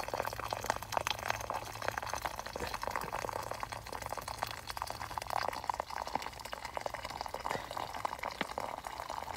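Hot water bubbling and trickling in a small camping cook pot: a steady, dense fizzy crackle.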